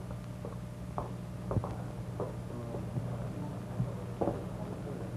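Steady low hum and hiss of an old optical film soundtrack, with a few scattered clicks and pops.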